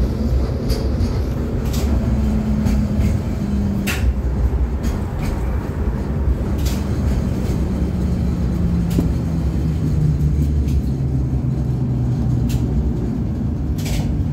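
Inside an LVS-86K articulated tram in motion: a steady rumble of wheels on rails under a motor hum that falls in pitch over the second half as the tram slows. Scattered sharp clicks and knocks.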